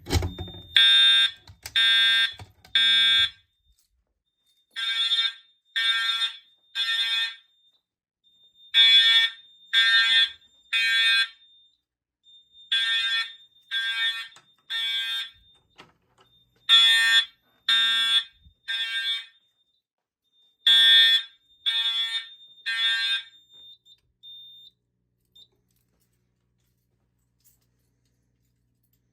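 Fire alarm horns (Simplex Integrity and ADT 5060-S) sounding together in the temporal-three evacuation pattern: three short blasts, a pause, and again, six rounds in all, set off from a manual pull station on a Simplex 4004 panel. They stop a little over 23 seconds in, followed by a couple of faint short beeps.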